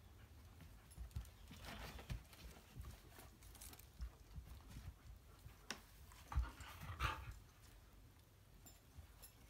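Faint scuffling of a dog and a kitten at play on a cardboard cat scratcher: scattered soft thumps of paws and bodies bumping, with a few short rustles, the loudest about two seconds in and again around six to seven seconds.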